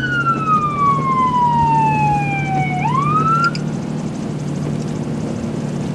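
Fire department emergency vehicle's electronic siren wailing: the tone slides slowly down, sweeps back up and cuts off about halfway through, leaving the steady hum of the moving vehicle.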